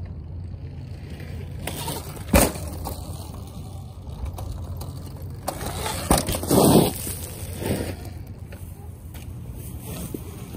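Sur-Ron electric dirt bike hopping a rock on gravel: a sharp knock about two seconds in, then a thud and a louder crunch of its knobby tyres landing on the gravel a little past the middle, the loudest part. A steady low rumble runs underneath.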